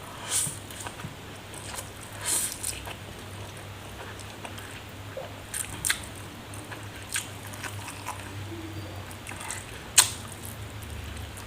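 Close-miked eating sounds: scattered bites and chewing with occasional sharp, crisp crunches, the loudest about ten seconds in.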